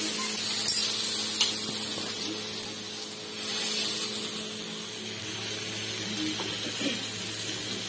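Whole pomfret sizzling in shallow oil on a flat iron tawa, a steady frying hiss, with a couple of light metal clicks about a second in.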